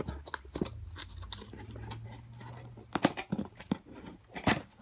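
Fingers picking at and peeling packing tape off a cardboard box: scattered scratches and sharp clicks of tape and cardboard, busier in the last two seconds.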